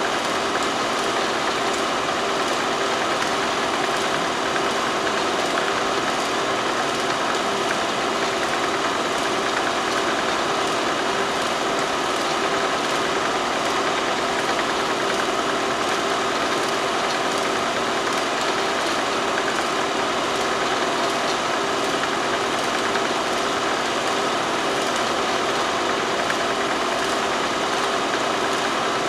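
Steady whirring hum of a film projector running, with a constant hiss and no change in pitch or level; the silent footage carries no sound of its own.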